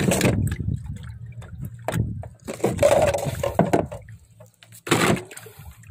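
Seawater splashing and sloshing against a small boat's hull, coming in a few louder surges over a low steady rumble.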